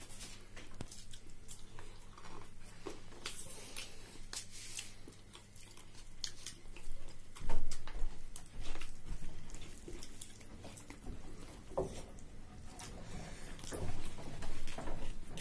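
Close-up eating sounds of people eating rice and curry by hand: chewing and mouth sounds, with scattered small clicks and rustles from fingers working food on paper plates.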